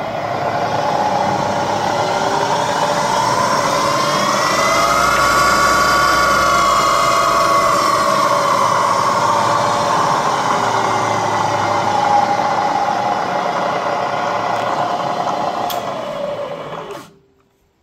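Bridgeport Series 1 2J variable-speed milling machine running in back gear, its 2-horsepower motor and drive making a steady mechanical whine. The pitch rises over the first five or six seconds and then falls slowly as the variable speed is changed, and the sound stops abruptly about a second before the end.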